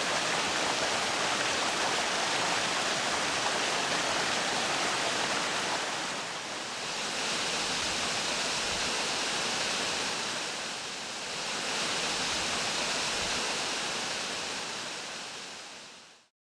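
Rushing water of a small waterfall and a mountain stream cascading over stepped rock, a steady rush that dips briefly twice and fades out near the end.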